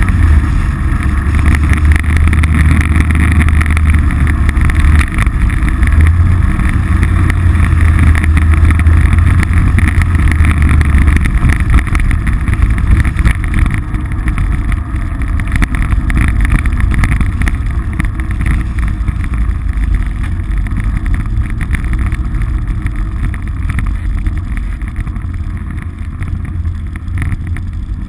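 Polaris RZR side-by-side's engine running under way on a dirt track. Its low drone is strong for the first ten seconds or so, then eases off and grows gradually quieter.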